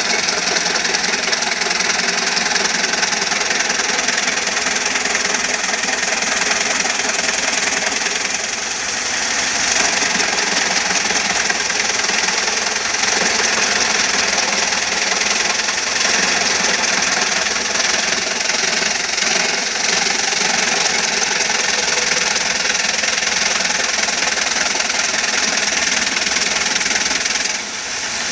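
Engine of a wood-working machine running steadily under load, with a short dip in level near the end.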